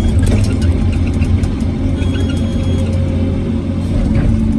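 Hyundai R850LC excavator's diesel engine running steadily under working load, with scattered clicks and rattles over the drone.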